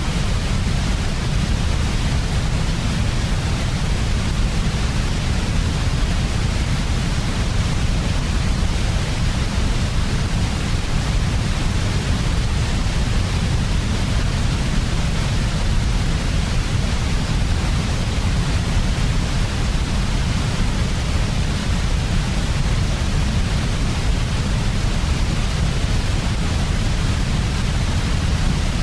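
Steady electronic sleep noise, a 'white noise' track for babies: an unchanging hiss with most of its weight in a low rumble and a softer, even hiss above it.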